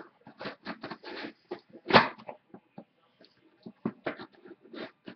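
A well-packed mail-order package being opened by hand: irregular scraping, rustling and tearing of the packaging, with a sharp knock about two seconds in.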